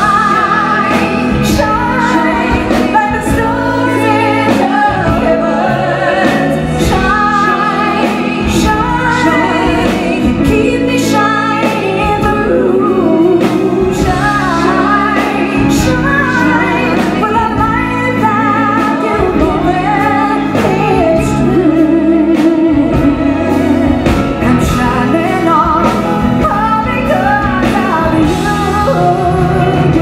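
A woman singing a pop song live into a microphone with a band backing her, her voice wavering in vibrato on held notes.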